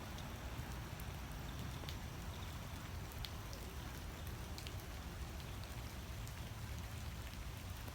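Light drizzly rain falling onto a pond, a steady even hiss with scattered faint drop ticks.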